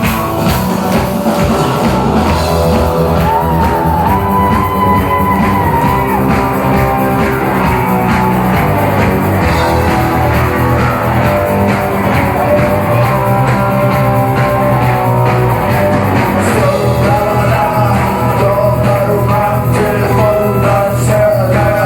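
Rock music played by a band: a steady drum beat, a bass line and a wavering melodic lead over them.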